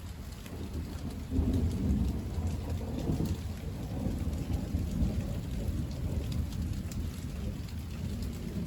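Steady rain falling with scattered drop ticks. Thunder breaks in suddenly about a second in, with a loud low rumble that rolls on for several seconds and slowly fades.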